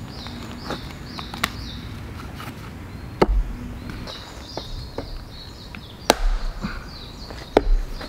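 Axe splitting firewood on a chopping block: about four sharp chops a second or more apart, the later ones landing with a heavy thud.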